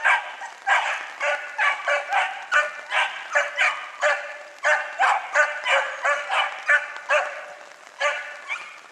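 Small Italian hare hounds (piccolo lepraiolo) barking in a rapid, unbroken series of short, high yelping barks, about two or three a second: the cry of hounds giving voice as they work a trail.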